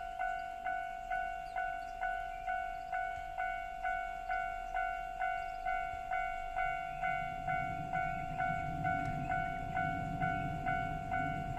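Japanese level-crossing warning bell ringing, an even ding repeating about twice a second. From about seven seconds in, the low rumble of an approaching JR West 103 series 3550 sub-series electric train builds underneath the bell.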